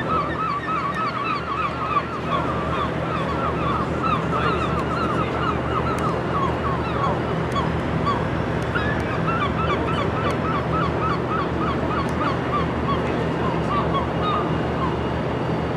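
071 class diesel locomotive's EMD engine running with a low steady hum, under a long series of short, high-pitched squealing chirps, about three or four a second, from its wheels grinding round the curved pointwork as it creeps in.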